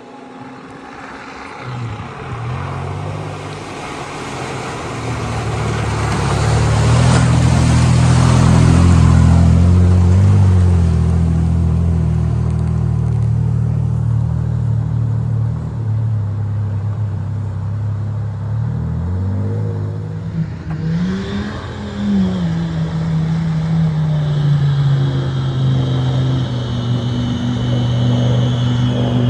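Off-road 4x4's engine revving hard as it fords deep water, with water rushing and splashing against the vehicle. The engine pitch rises and falls several times, and the rush of water is loudest a few seconds in.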